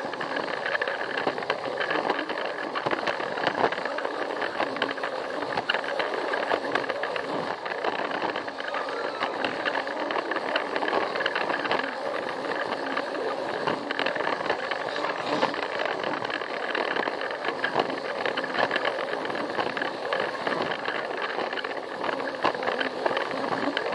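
Plarail battery-powered toy train running along plastic track: a steady whirring of its small motor and gears with frequent short clicks.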